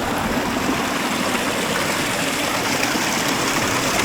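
Rushing river water, a steady loud rush with no breaks.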